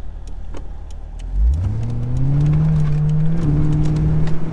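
The Corvette's V8 runs low and steady, then revs up sharply about a second and a half in as the car launches hard from a standstill. It keeps pulling with a brief dip in pitch partway through, then climbs again.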